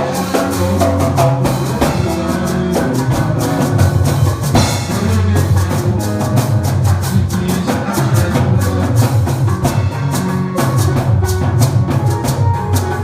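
A live band playing at a sound check: a drum kit keeps a steady beat over a prominent bass line, with other instruments filling the middle.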